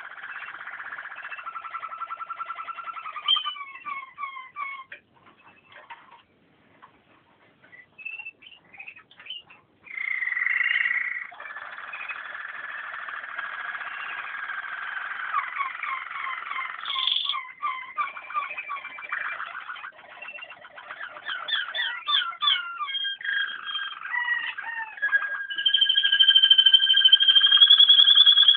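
Waterslager (Malinois) song canary singing: a long, varied song of rapid trills, rolls and drawn-out whistled notes. It breaks off into a near-silent pause of about two seconds a fifth of the way in, and ends on a long steady high note.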